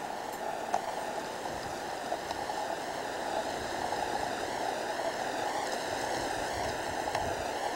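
Steady rushing noise with a few faint clicks and no distinct source.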